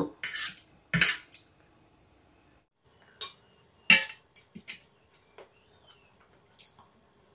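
Metal spoon and fork clinking and scraping against a metal serving tray while scooping food. There are a handful of separate clinks, with the loudest about four seconds in.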